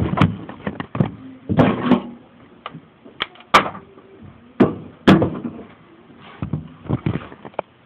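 Home-built semi-automatic K'nex gun firing, a series of sharp plastic snaps and clacks, some with a short rattle after them, coming at uneven intervals of about half a second to a second and a half.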